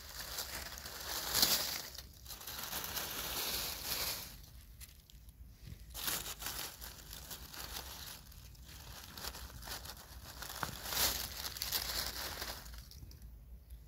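Dry fallen beech leaves rustling and crunching as a hand pushes through them around a porcini mushroom. The rustling comes in bursts with short pauses between them.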